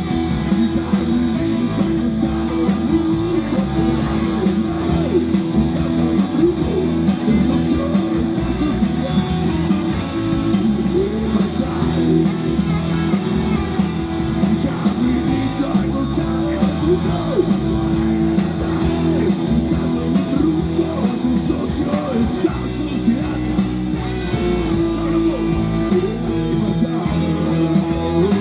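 Rock band playing, with guitar to the fore.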